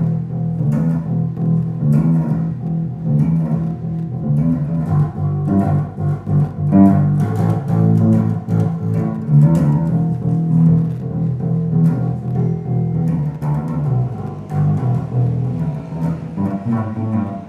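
A deep, hollow-toned bass played as a continuous rhythmic pattern, each note with a sharp attack.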